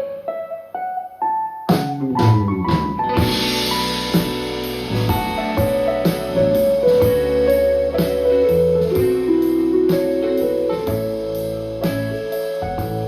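Instrumental break of a pop song: a keyboard solo over drums and bass. For about the first second and a half the keyboard plays a few notes alone, then the drums and bass come back in under the keyboard melody.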